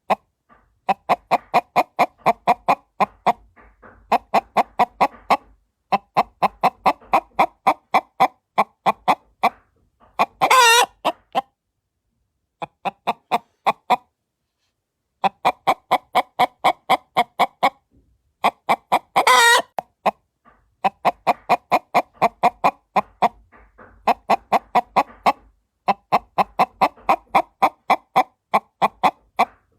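Hen-like clucking in fast runs of short clucks, about five or six a second, broken twice by a loud, longer squawk that rises and falls in pitch. The whole pattern repeats about every nine seconds, as if looped.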